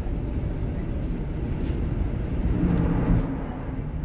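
Steady low rumble of road and engine noise inside a double-decker bus travelling at highway speed, swelling briefly with a low hum about two and a half seconds in.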